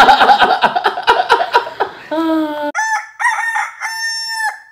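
People laughing loudly for about two seconds, then a rooster crowing: a few short rising and falling notes followed by one long held note near the end. The room noise drops out completely under the crow, as with an edited-in sound effect.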